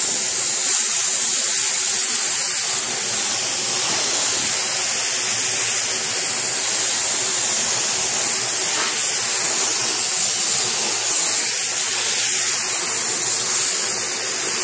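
Iwata compressed-air spray gun spraying filler primer: a steady, loud hiss of air and atomised paint, held without a break.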